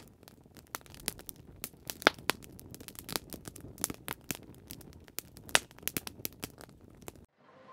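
Wood fire crackling, with many irregular sharp pops and snaps over a faint hiss; it cuts off abruptly near the end.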